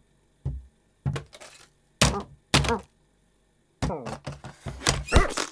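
Cartoon sound effects: a run of short thuds and knocks mixed with brief pitched vocal grunts and cries, busiest near the end.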